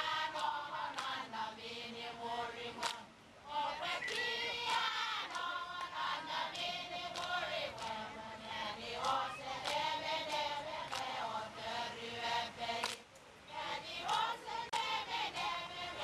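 A group of women singing a chant together in unison, with short breaks between phrases about three seconds in and again about thirteen seconds in.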